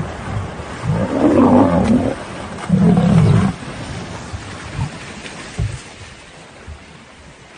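A large wild animal roaring twice, deep and rough, in the first half, with water splashing as a hippo charges lions through shallow water. Quieter splashes follow.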